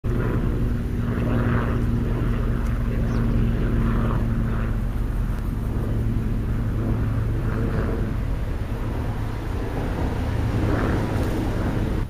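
An engine drone: a steady, loud, low hum of a motor running at an even speed.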